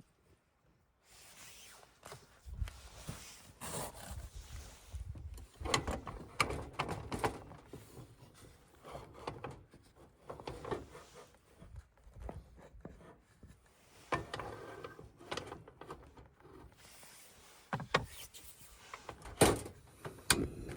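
Irregular knocks, clicks and thumps with rustling between them, like things being handled and set down, with a sharp knock near the end as the loudest.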